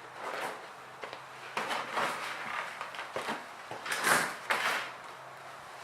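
Slush of crushed dry ice and rubbing alcohol being stirred and scraped in its container: a run of short scraping strokes, the loudest about four seconds in.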